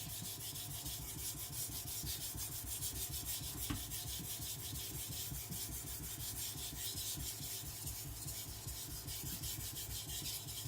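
A hard SRS-15 powder-steel gyuto blade being stroked back and forth on a water-wetted Naniwa Professional 1000 whetstone, a steady rhythmic scraping of steel on stone as the coarse stone cuts the edge.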